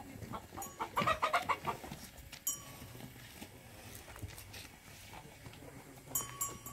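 A hen clucking in a quick run of calls about a second in, with a couple of short metallic clinks later.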